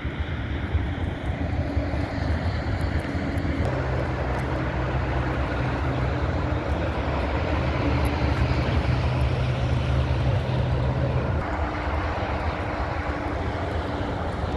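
A steady, distant engine drone under rushing wind-like noise. A low hum comes in about four seconds in and drops away near the end.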